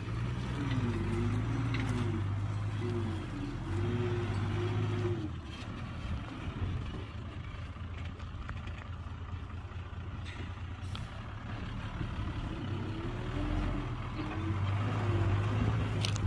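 Heavy diesel engine of earthmoving machinery running and working, its pitch rising and falling with load. It is louder at first, eases off for several seconds in the middle, and picks up again near the end.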